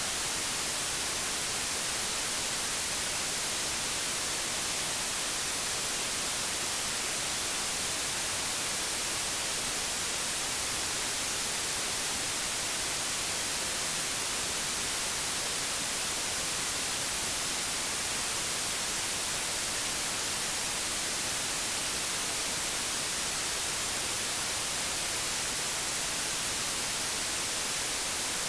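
Old analogue television static: a steady, unchanging hiss, strongest in the highs.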